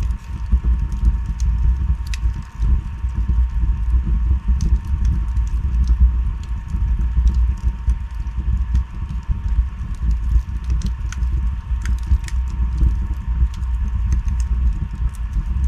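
Wood fire burning in a fireplace: a steady low rumble of flames with frequent small crackles and sharp pops, a few of them louder.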